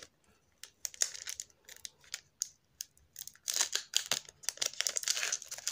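Plastic wrapper of a Pokémon trading card pack being torn open and crinkled by hand. Scattered crackles, sparse at first and much denser from a little past halfway.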